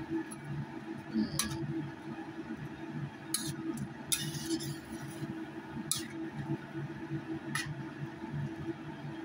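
Spatula stirring fish and pea eggplants in a pan of coconut-milk broth, with a few sharp clicks of the spatula against the pan and a short scraping swish in the middle, over a steady low hum.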